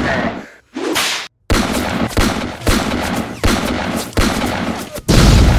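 Handgun shots fired one after another, about eight in all, roughly every two-thirds of a second, each with a short fading tail; the last shot, near the end, is the loudest.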